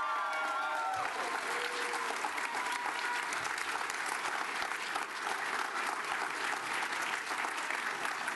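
Large crowd applauding and cheering, with a few voices shouting over the clapping near the start.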